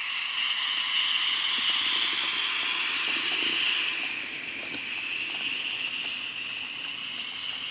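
Model train running past: the BB 67601 diesel locomotive's motor and the wheels of the tank wagons rolling along the track, a steady high rushing hiss with faint clicks. It is loudest as the locomotive goes by and eases off about halfway through as the wagons follow.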